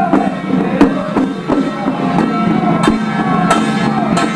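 Temple procession music: a wavering melody line over irregular, sharp percussion strikes.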